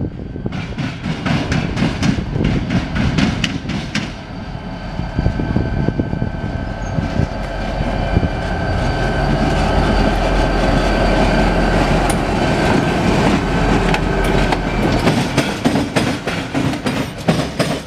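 A single CSX diesel locomotive running light past at close range: its engine drone grows heavier as it comes near, and near the end its wheels click in quick succession over rail joints and switches.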